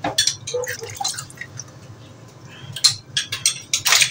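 Kitchen utensils clicking and clinking against a dish, sparse at first, then a quick run of sharp clicks about three seconds in, the loudest just before the end.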